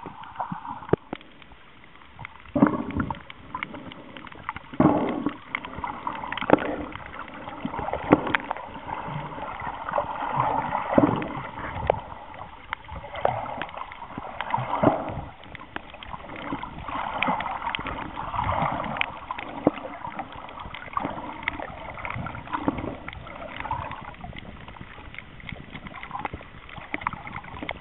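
Muffled sloshing and gurgling of water around an underwater camera, in uneven swells, with scattered sharp clicks throughout.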